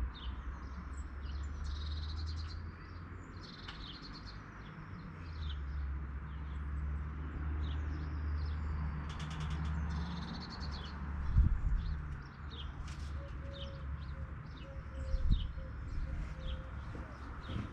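Several birds chirping and calling in short, high notes throughout, over a low rumble. A couple of short thumps stand out, the loudest about eleven seconds in.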